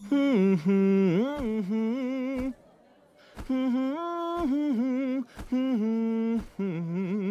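A man humming a tune in several phrases, with a pause of about a second near the middle.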